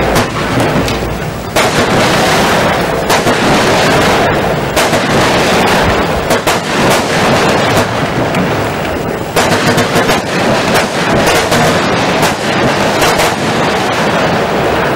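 Lesli 'Crouching Tiger' 36-shot firework cake firing: a fast, near-continuous run of shots and bursts from its gold palm effects, with a brief let-up about a second and a half in.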